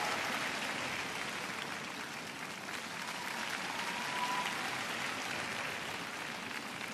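Large arena crowd applauding steadily, the clapping easing slightly in the middle and swelling again about four seconds in.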